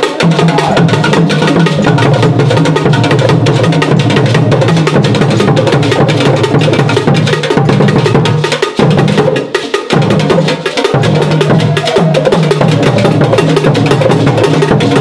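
Loud percussion music: drums with a rapid, clicking wood-block-like beat over a steady low hum. It drops out briefly twice around the middle.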